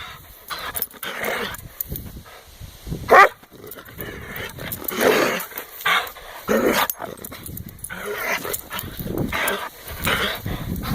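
Dog growling and snarling in irregular bursts, with one louder, sharper burst about three seconds in.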